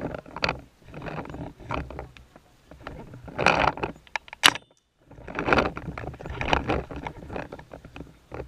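Handling noise from a camera mounted on a paintball marker as the player moves: irregular rattling and knocking of the marker and gear, with footfalls. There is one sharp click about halfway through, then the sound cuts out for about half a second.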